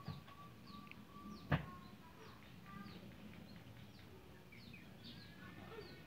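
Caged kemade (flowerpecker) giving many faint, short, high chip calls, each falling in pitch, as the male courts the female. A thin wavering whistle is held under the chips for the first few seconds, and two sharp knocks come near the start and about a second and a half in.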